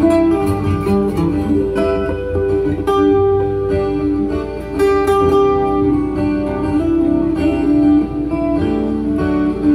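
Acoustic guitar played in an improvised live loop jam: picked melodic notes ringing over sustained, layered guitar parts.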